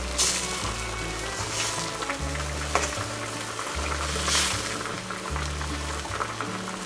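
Soy sauce braising liquid bubbling and sizzling hard around a whole chicken as a ladle scoops and pours it over the bird. There are sharper bursts of hiss about a quarter second in, around one and a half seconds, and just past four seconds. Background music with a low bass line plays throughout.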